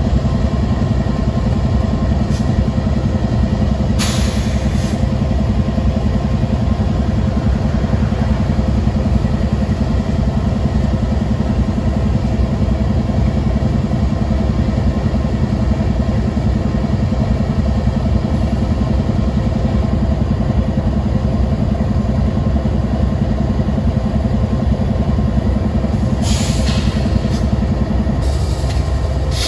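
Several Norfolk Southern diesel-electric locomotives running at low throttle with a steady deep rumble as they move slowly past. Brief hisses are heard about four seconds in and again near the end.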